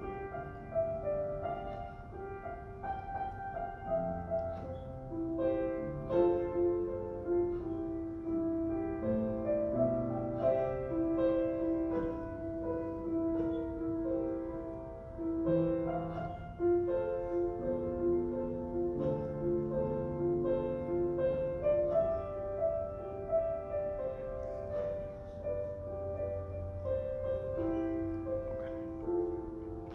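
Piano playing a slow melody over sustained chords.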